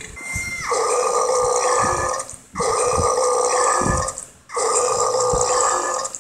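Big burps, three in a row, each lasting about a second and a half with short breaks between them.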